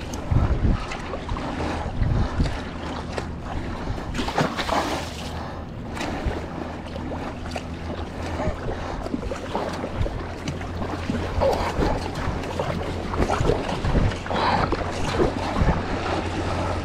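Paddle blades dipping and pulling through lake water beside an Epic V9 surfski, with water rushing along the hull and wind on the microphone. A low, steady engine drone from a motorboat comes in about seven seconds in.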